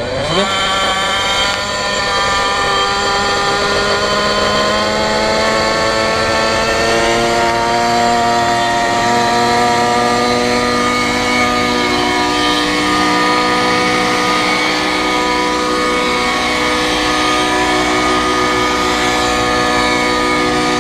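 Engine starting up sharply, then revving with its pitch climbing steadily for about ten seconds before holding high and steady.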